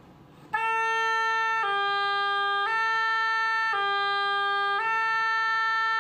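An oboe plays a slurred two-note finger exercise in one breath: A, G, A, G, about one note a second with no break between them, ending on a held A. Each change is made by lifting and pressing the ring finger while the A fingering stays down.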